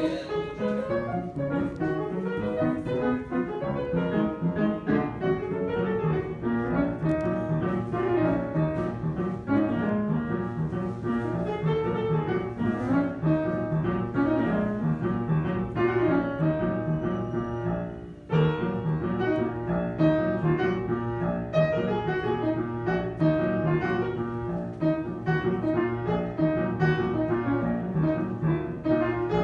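Piano music playing continuously, with a brief break about two-thirds of the way through before it carries on.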